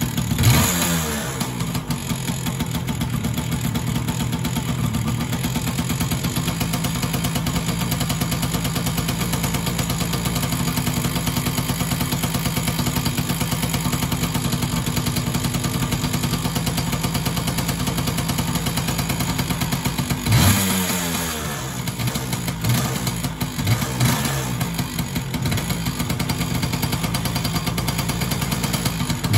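Yamaha PW80's two-stroke single-cylinder engine running just after a kick start, on premix with its oil injection bypassed: a brief rev at the start settling to a steady idle. About two-thirds through it is revved again, with a few short blips, then idles on.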